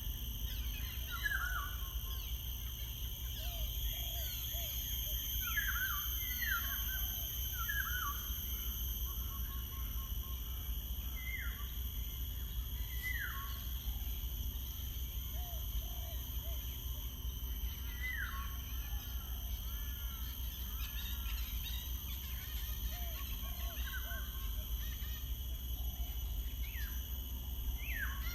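Wild birds chirping and calling in short, quick downward-sliding notes every second or two, over a steady high-pitched drone and a constant low outdoor rumble.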